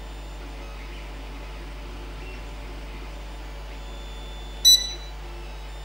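A single short electronic beep from the ceiling fan's remote-controlled AC/DC controller board as it takes a speed command, about four and a half seconds in. A steady low hum runs underneath.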